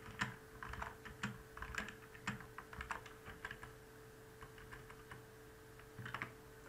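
Typing on a computer keyboard: quick runs of keystrokes through the first half, then only scattered keys, and a short burst about six seconds in. A faint steady hum runs underneath.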